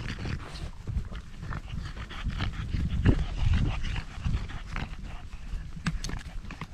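French bulldog panting heavily in quick, irregular breaths.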